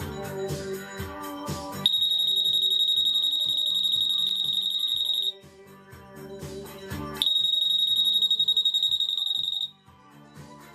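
Alarm of a CrystalGuard MONO 8.2 MHz RF anti-theft gate: a high, steady beep tone that sounds twice, for about three and a half seconds and then about two and a half seconds, signalling a security tag detected between the pedestals. Background music plays underneath.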